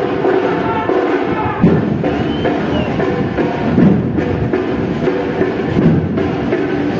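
Music with drums and percussion: low drum beats recurring every second or two under sharp wooden clicks and layered pitched instruments, the pitched part strongest in the first second and a half.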